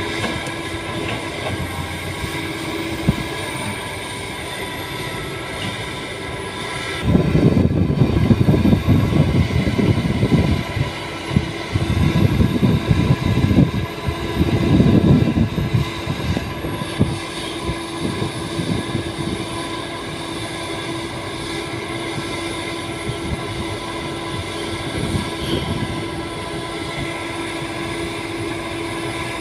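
Doosan DX225LCA hydraulic excavator's diesel engine running with a steady hum, working harder in three louder, rougher bouts between about 7 and 16 seconds as the bucket presses bamboo stakes down into soft peat ground.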